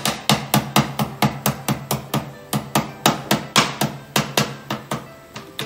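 Lemongrass stalk being bruised by pounding it: a fast, even run of knocks, about four a second.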